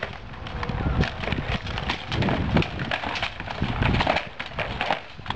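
Irregular sharp clacks and knocks, several a second, from players' equipment striking during a practice drill.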